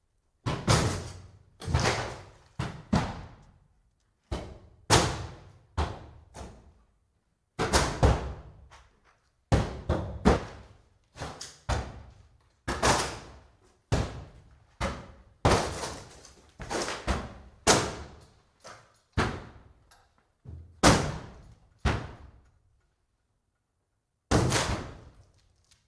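Axe blows chopping into and breaking up a wooden cabin's timber, heavy wooden impacts at irregular intervals of about a second, often in quick pairs, each with a short cracking decay, and a pause of about two seconds near the end.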